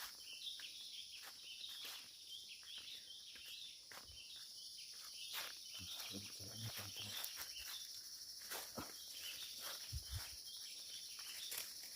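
Forest insects keep up a steady high-pitched drone, with repeated short chirping calls over it. Scattered crackles and thuds of footsteps on the forest floor come through, a few of them heavier around the middle and near the end.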